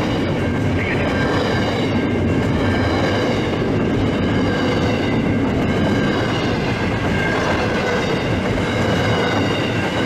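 Intermodal container freight train's wagons rolling past close by, a steady, loud rumble of wheels on rail.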